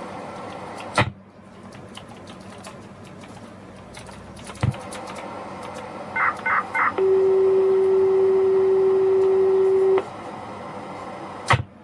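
Electronic signal tones: three short wavering beeps about six seconds in, then a steady low tone held for about three seconds. A sharp click sounds about a second in and another near the end.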